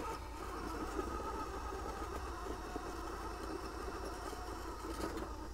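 Spektrum 2100kv sensored brushless motor and geared drivetrain of an RC rock crawler whining steadily under load as the truck pushes against a rock wall.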